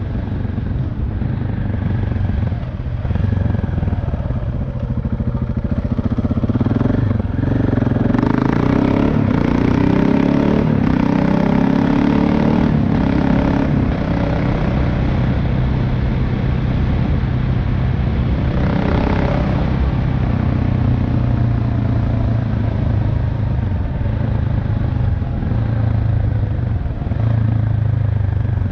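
KTM 690 Enduro R's single-cylinder engine and exhaust running under way, heard onboard. The pitch rises and drops a few times about a third of the way in as the bike accelerates through the gears, then settles to a steadier run.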